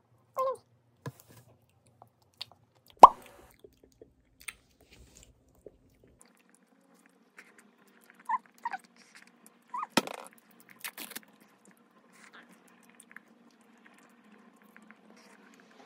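Mouth sounds of eating a soft ice cream cone: scattered lip smacks and small clicks, with one sharp click about three seconds in and a cluster of them around ten seconds, plus a few brief hums.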